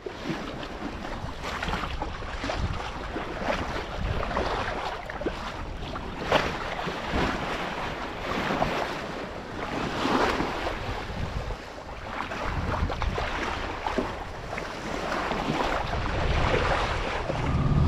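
Sea water rushing and splashing along the bow of a sailboat under way, rising and falling in surges every second or two, with wind buffeting the microphone.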